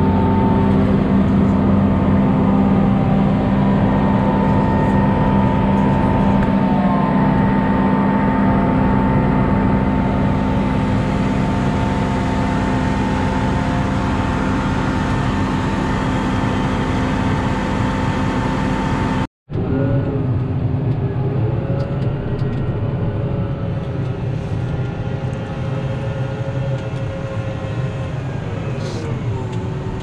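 Tractor engine running steadily, heard from inside the cab as a constant hum. About two-thirds of the way through the sound cuts out for a moment, then the engine drone resumes with its pitch wavering slightly.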